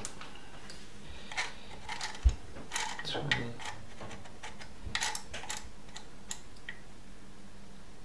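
Scattered soft plastic clicks and taps from a Honeywell Rondostat programmable radiator valve head as it is handled and its controls are worked, with one dull low thump a little over two seconds in.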